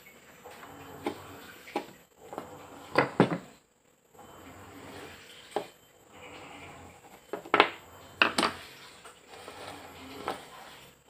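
A small wooden stick and marking tools being handled on a hard tabletop: scattered sharp knocks and clicks, loudest in two clusters about three seconds and eight seconds in.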